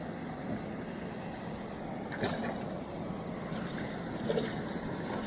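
Water pouring over a spillway weir, a steady rushing noise, with one short sharp click about two seconds in.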